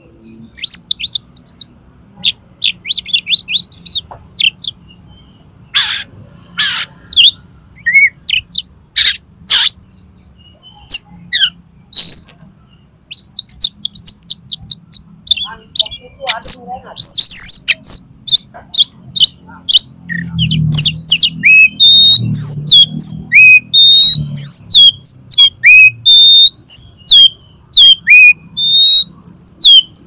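Oriental magpie-robin (kacer) singing a loud, varied song of quick chirps, sharp clicks and whistled notes. About two-thirds of the way in it breaks into a fast run of short repeated notes.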